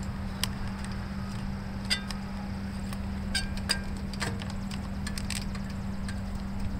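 Light, scattered clicks and clinks, about half a dozen, from hand work on the air cleaner housing and carburetor mounting bolts of a Honda GC160 engine, over a steady low hum.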